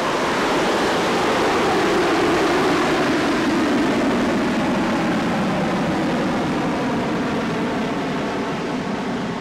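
Jet airliner passing overhead: a steady rushing engine noise whose pitch slowly falls, easing off a little near the end.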